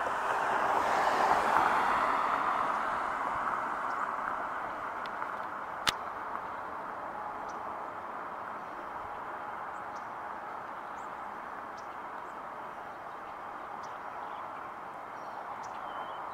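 Road noise of a passing car, swelling over the first couple of seconds and slowly fading to a steady traffic hum. A single sharp click about six seconds in, and a few faint high ticks.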